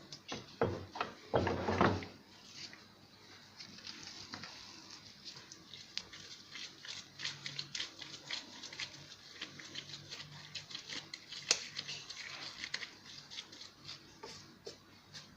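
Hands shaping soft, sticky gluten-free dough into balls on a wooden board: faint squelches and light taps, with a few louder thuds in the first two seconds.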